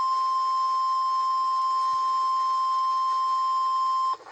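NOAA Weather Radio warning alarm tone, a single steady 1050 Hz beep, held without a break and cutting off suddenly near the end. It is the signal that a warning broadcast follows, here a tornado warning.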